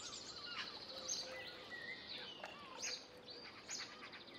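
Faint birdsong from several small birds: short chirps, quick whistled glides and rapid trills overlapping each other over a soft background hiss.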